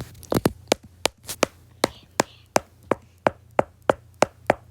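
Sharp taps of something hard in a steady rhythm, about three a second.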